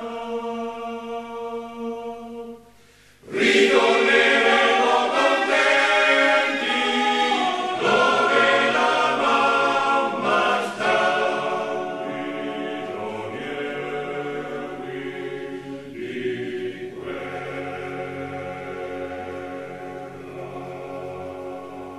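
Choir singing a canto alpino, an Italian Alpine soldiers' song, in sustained chords. After a held chord there is a brief break about three seconds in. The choir then comes back in loudly and slowly softens toward the end.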